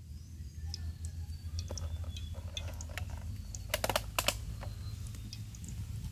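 Wood fire crackling under a wok: scattered small snaps over a low steady rumble, with a quick run of louder sharp clicks about four seconds in.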